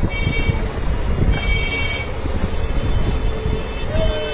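Steady rumble of road traffic, with two short high tones, one near the start and one about a second and a half in.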